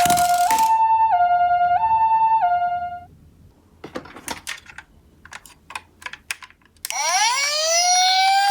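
Two-tone hi-lo ambulance siren, the pee-po alternating between two pitches about every half second, stops about three seconds in. A few sharp clicks follow. About seven seconds in, a wailing siren rises in pitch and then holds a steady tone.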